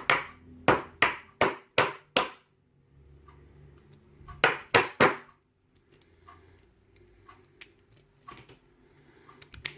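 Sharp taps on an ABUS padlock to knock its core plug loose for disassembly: five quick taps in the first couple of seconds, three more about four and a half seconds in, then only faint small clicks.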